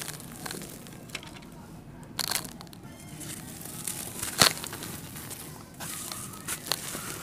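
Blocks of dry red dirt crumbling and crushing in the hands, with loose grit and dust falling into a tub of red powder. Sharp crunches come about two seconds in and, loudest, about four seconds in.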